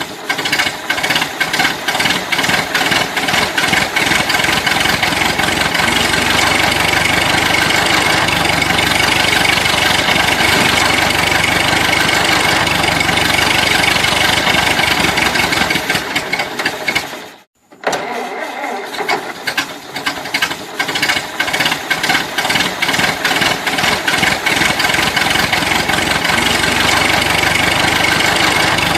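Old car engine running rough. About seventeen seconds in it cuts out completely for a moment, then is cranked, catches again after a few uneven beats and settles back into running.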